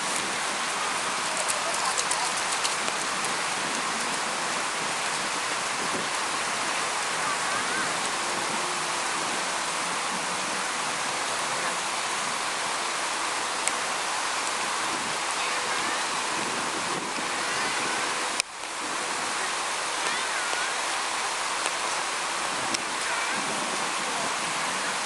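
Sea surf washing onto a beach: a steady hiss of breaking waves.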